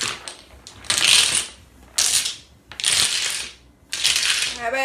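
Domino tiles clattering against one another as hands rummage through a loose pile: four short bursts of clacking, about one a second.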